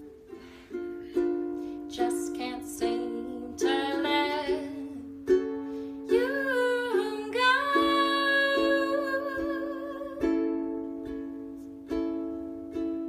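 Ukulele chords played in an even rhythm, each one ringing and fading. A wordless sung phrase with gliding pitch comes in about four seconds in and holds until about ten seconds.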